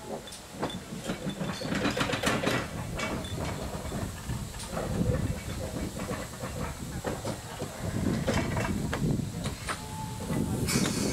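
GWR 4575 class prairie tank No. 5572 steam locomotive passing slowly at close range. Its exhaust beats come irregularly and steam hisses, with wheels clicking over the rail joints; the hiss grows louder near the end.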